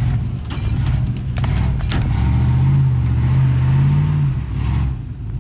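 Truck engine revving under load as it pulls on a strap tied to a large fallen tree; the revs build about two seconds in, hold, then drop back near the end.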